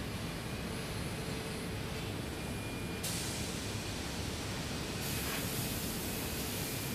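Steady hiss over a low rumble, with no distinct knocks, taps or tool sounds; the hiss brightens abruptly about three seconds in and again about five seconds in.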